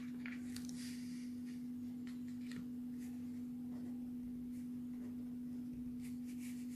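A steady hum, with faint scratches of a marker writing on paper.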